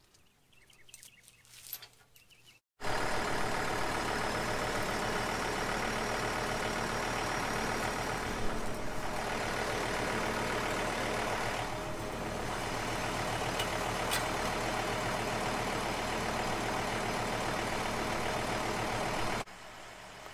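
Diesel engine of a John Deere compact tractor running steadily close by. It comes in suddenly about three seconds in and falls away to a distant hum just before the end.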